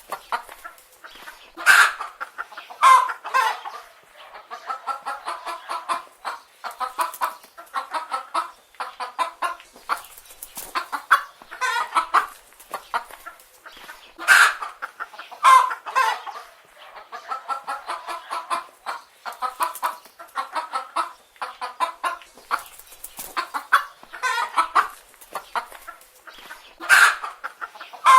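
Chicken hens clucking without a break, with a louder call rising above the flock now and then.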